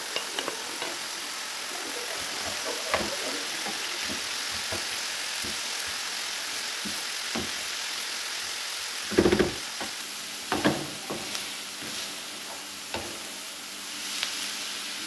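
Diced chicken, onion, green pepper and grated carrot sizzling in olive oil in a frying pan, stirred with a wooden spoon that scrapes and knocks against the pan now and then, loudest a little past the middle.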